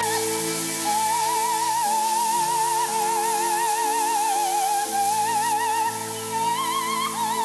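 Background music: a high, sustained melody sung or played with a strong wavering vibrato, operatic in style, over held low chords.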